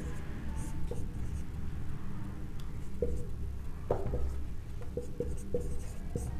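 Marker pen writing on a whiteboard: short scratchy strokes and small taps as digits are written, over a low steady hum.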